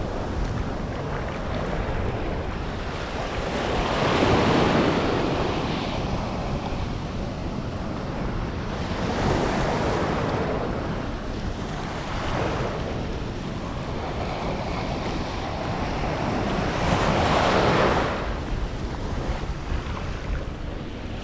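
Ocean surf washing in and out around the feet, swelling louder three times as waves roll in, with wind rumbling on the microphone throughout.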